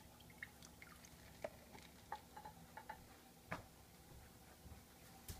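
Faint, irregular light clicks and taps as the waterfall unit of an aquaponic waterfall garden is handled and lifted out, the sharpest tap near the end.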